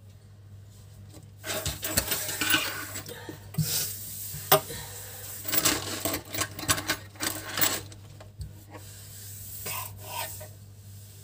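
Rubbing and scraping handling noise with scattered sharp clicks, from about a second and a half in to about eight seconds in, with a few fainter scrapes near the end. A steady low hum runs underneath.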